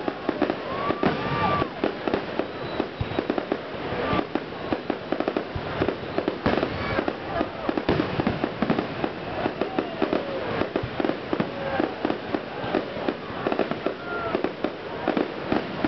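Fireworks display in a rapid, unbroken barrage: aerial shells bursting and crackling, many sharp bangs a second, overlapping one another.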